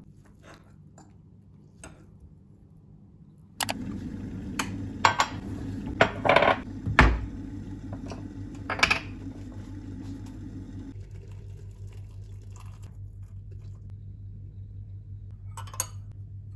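Kitchen handling sounds: a few faint clicks at first, then from about four seconds in, sharp clinks and knocks as a glass mug and a lidded tea canister are handled on a stone countertop, over a steady low hum. A teaspoon clinks in the glass mug near the end.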